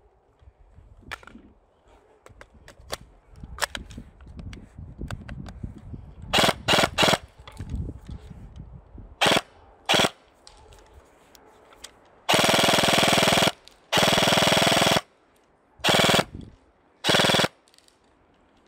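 Airsoft gun firing in bursts: a few short bursts, then two sustained full-auto bursts of about a second each, then two more short bursts near the end. Faint clicks and handling rumble come before the first shots.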